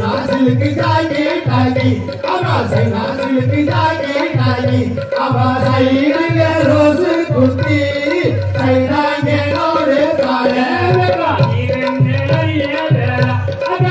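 Valli kummi folk song: singing over a steady, regular drum beat.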